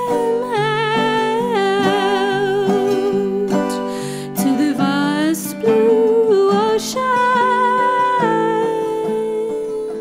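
Acoustic folk band playing an instrumental passage: a melody line with strong vibrato, likely the violin, over plucked guitar and mandolin and double bass.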